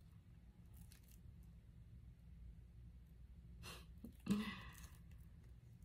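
Quiet room tone with a low steady hum. A little over three and a half seconds in comes a soft breath, then a brief sigh-like vocal sound.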